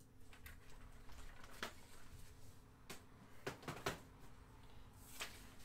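Faint handling noise: a sheet of printer paper rustles and a few soft clicks and taps come at irregular moments, over a low steady room hum.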